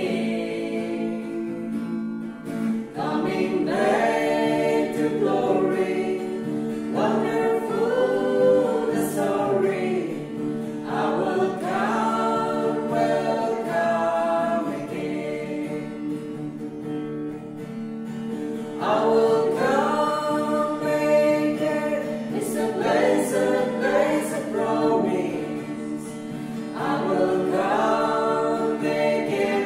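A small mixed vocal group of two men and two women singing a gospel song in harmony to an acoustic guitar accompaniment.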